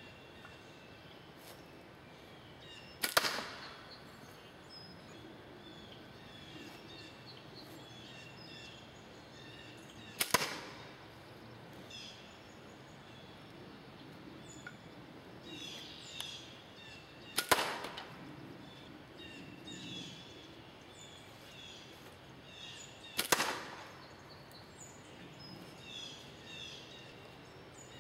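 Four slingshot shots six to seven seconds apart, each a sharp crack as the ball strikes a paper target on a cardboard box, with birds chirping faintly throughout.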